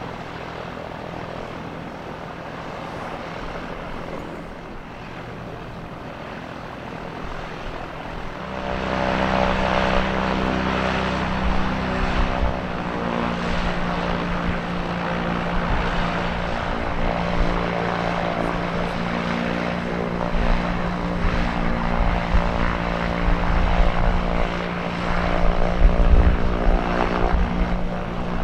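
Piper PA-28RT-201T Turbo Arrow IV's turbocharged six-cylinder engine and propeller running at low power on the ground. The engine is brought up to a louder, steady taxi power about eight seconds in. There is gusty low rumble near the end.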